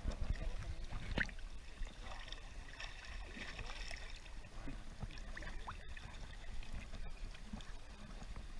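Water lapping and small splashes right against a camera held at the water surface, with a steady low rumble.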